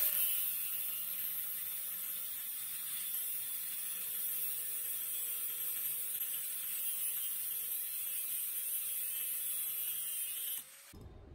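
Angle grinder with a cutting disc slicing through the turns of a steel coil wound from round bar, clamped in a vise: a steady motor whine under a harsh high hiss from the disc cutting the metal. It stops abruptly near the end.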